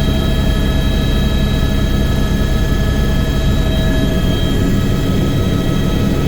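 Helicopter running, a steady loud drone of rotor and engine with several steady high whining tones from the turbine above it.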